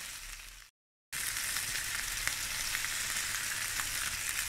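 Fresh cod fillets sizzling in oil in a nonstick frying pan over moderate heat, just turned over. The steady sizzle fades and breaks off for a moment just under a second in, then comes back steady with a few light clicks.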